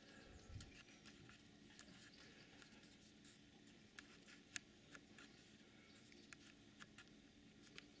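Near silence: faint steady room tone with a scattering of faint, sharp, irregular ticks.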